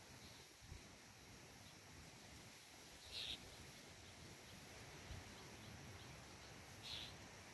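Near silence: faint outdoor ambience with two short, high chirps about three and a half seconds apart.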